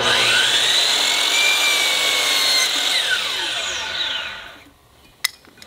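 DeWalt 12-inch sliding compound miter saw fitted with a Diablo 44-tooth blade, switched on and whining up to speed, crosscutting a maple 1x3, then switched off and winding down with a falling whine over a second or two. A single sharp click follows near the end.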